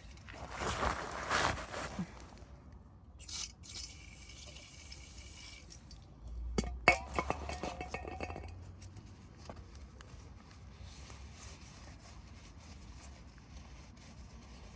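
Metal parts and tools being handled: rustling at first, a hiss a few seconds in, then one sharp clink with a dull knock, followed by light handling sounds.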